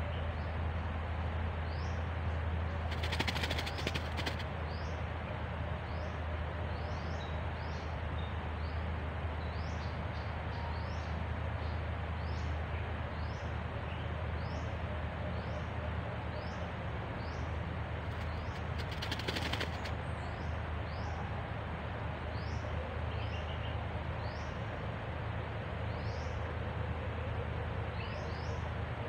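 Forest ambience: many short, high, rising bird chirps scattered throughout over a steady low hum, with two brief bursts of hiss, one about three seconds in and one about nineteen seconds in.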